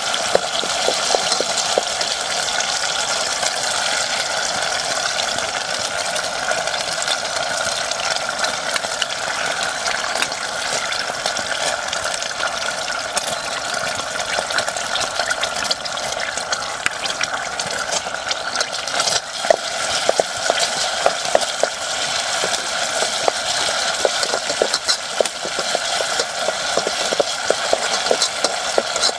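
Hot oil sizzling and crackling in a metal pot as sliced aromatics fry, with occasional clicks of a stirring utensil against the pot in the second half.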